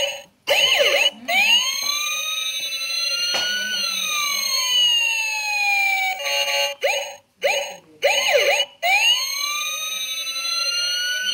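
Looping electronic siren-like sound effect: several overlapping tones sweep up and down, broken by short gaps, and the whole pattern repeats about every seven seconds.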